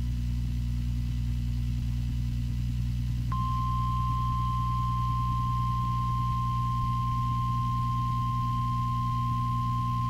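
NOAA Weather Radio broadcast with a steady low hum; about three seconds in, the 1050 Hz warning alarm tone starts with a click and holds as one steady high tone. The tone is the signal that a warning, here a blizzard warning, is about to be read.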